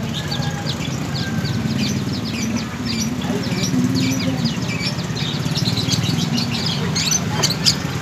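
Many small caged birds chirping together in quick, overlapping high cheeps, over a steady low rumble of street traffic.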